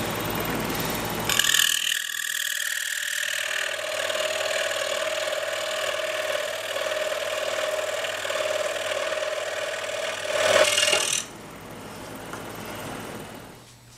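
Scroll saw running and cutting through a wooden board, a steady mechanical buzz of the blade that drops to a lower level about eleven seconds in.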